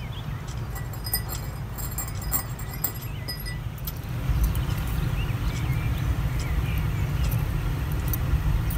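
Zinc-plated steel treble hooks strung on a wire, clinking lightly against each other as they are handled. The clicks are thickest in the first few seconds and sit over a steady low rumble.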